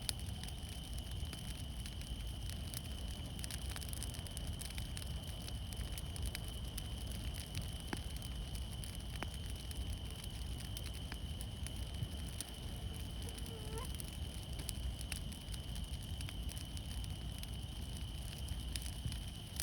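Fire crackling: scattered sharp pops and snaps over a steady low rumble, with a constant thin high tone underneath. A short whistling chirp comes about fourteen seconds in.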